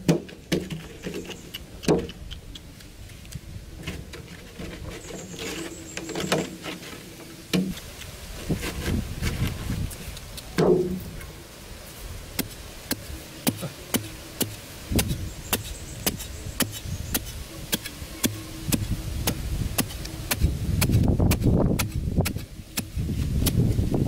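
A metal digging blade chopping and scraping into dry, sandy soil: many quick strikes and grating scrapes, with loose earth scooped and scattered, growing denser and louder in the last few seconds.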